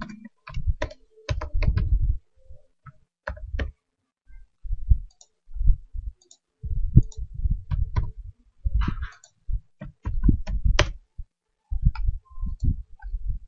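Computer keyboard keys and mouse buttons clicking in irregular short bursts with brief pauses between them.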